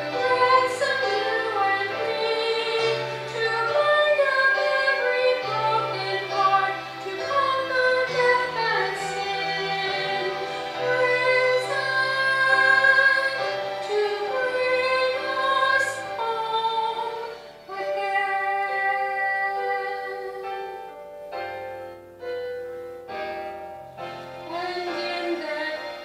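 A woman singing a slow song with instrumental accompaniment, holding long notes over steady bass notes.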